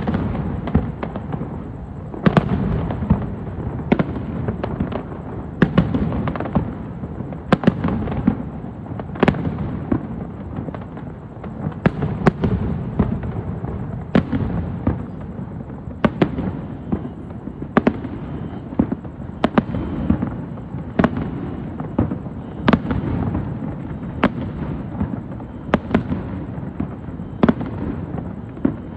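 Aerial fireworks going off in a continuous barrage: sharp bangs every second or two over a steady rumble of overlapping bursts.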